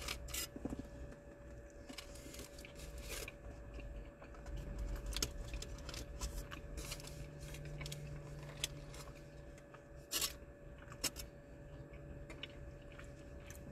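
Aluminium foil wrapper crinkling and rustling in short, scattered crisp bursts as a taco is handled over it.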